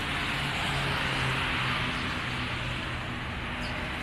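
Steady road noise of a moving vehicle: an even rushing hiss of tyres and wind with a faint low hum.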